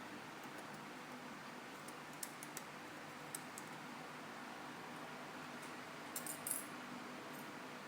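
Light clicks and taps of small repair tools and tiny phone parts being handled on an iPhone 5 during disassembly: a few scattered clicks, then a quick cluster of several clicks near the end, over a steady faint hum.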